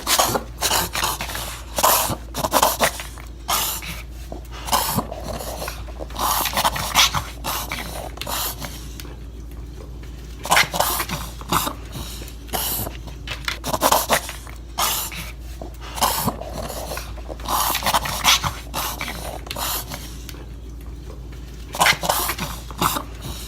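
A dog reverse sneezing: repeated noisy snorts as air is pulled inward through the nostrils, coming in spells with short pauses between them. The vet puts it down to irritation and swelling of the soft palate and the back of the throat, from wind chapping during over-exertion in snowy weather.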